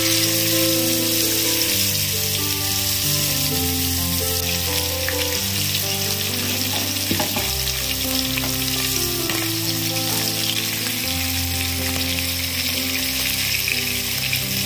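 Spice-marinated fish pieces deep-frying in hot oil, a steady loud sizzle that comes up sharply right at the start as the fish goes in. Soft background music with held notes plays underneath.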